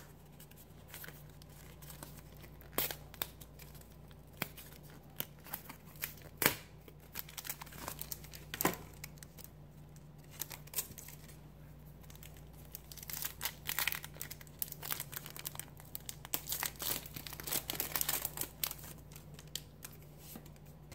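Pokémon trading-card blister pack and booster wrapper being torn open by hand: scattered crinkling and tearing of plastic and foil, busiest in the second half, over a low steady hum.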